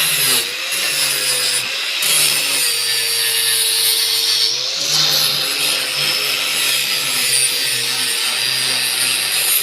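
Angle grinder working steel: a continuous harsh grinding hiss over the motor's whine. The whine sags and picks up again several times as the disc is pressed into the metal and eased off.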